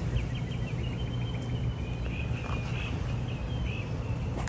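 A bird singing a continuous run of quick, warbling chirps over a steady low hum.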